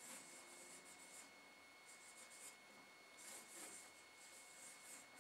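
Whiteboard marker writing on a whiteboard: faint, scratchy strokes in about three short runs with brief pauses between.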